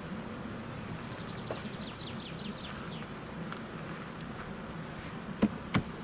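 Two sharp knocks near the end, a little under half a second apart: the rear storage compartment door of a Hymer motorhome being shut and latched. Earlier a small bird sings a quick descending trill of high chirps.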